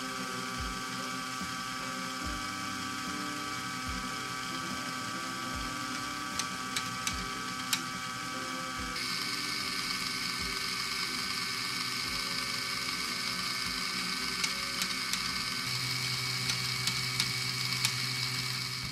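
LEGO Technic kinetic sculpture running: a small LEGO Power Functions electric motor whirring as it drives a plastic chain and gears, with a soft low knock a little more than once a second and a few sharp clicks. The whirr changes in tone about halfway through.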